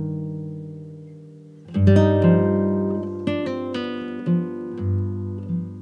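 Background music of strummed and plucked acoustic guitar: chords ring and fade, with a loud new strum just under two seconds in followed by single plucked notes.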